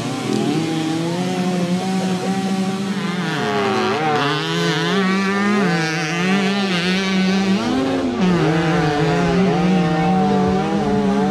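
Several small two-stroke Mofa moped engines running and revving together at a race, their pitches rising and falling and crossing over one another.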